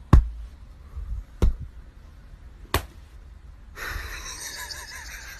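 Three sharp knocks about a second and a half apart. Then a steady hiss with a few faint, short squeaks.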